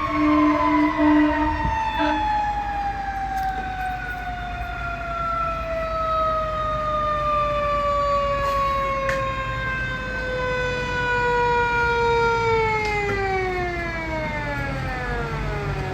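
Fire engine siren winding slowly down in pitch throughout, dropping faster near the end, the long coast-down of a mechanical siren. A steady horn note sounds under it for about the first two seconds.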